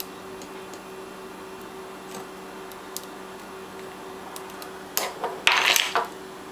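Shattered tempered-glass pot lid crumbling at its centre as the knob is pressed: a few faint ticks, then about five seconds in a short burst of crackling, tinkling glass as the crazed glass around the knob gives way.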